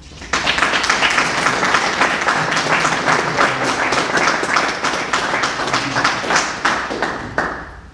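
Audience applause: many hands clapping, starting just after the start and dying away near the end.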